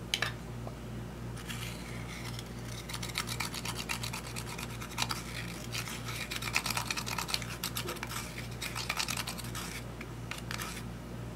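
Pressed eyeshadow being scraped out of its compact pan with a small tool: rapid, continuous scratching that starts about a second and a half in and stops shortly before the end.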